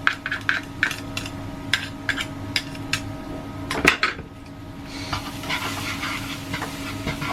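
A utensil repeatedly knocking and scraping against a wok while chopped garlic is stirred in hot oil, with a louder knock about four seconds in; from about five seconds the oil's frying sizzle is heard on its own.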